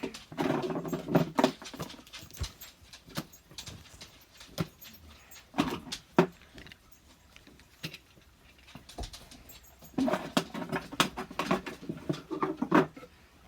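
Plastic fidget toys being handled and set down: scattered clicks and clacks, with two longer, lower stretches of sound, one at the start and one about ten seconds in.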